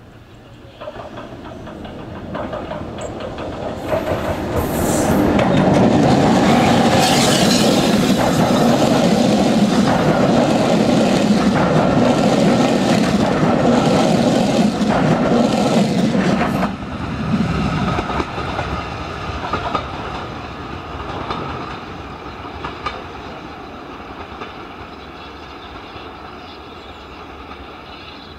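Steam-hauled passenger train passing close beneath. It grows louder over the first few seconds and stays loud while the coaches go by. It drops sharply about two-thirds of the way through as the last coach clears, then fades steadily as the train draws away.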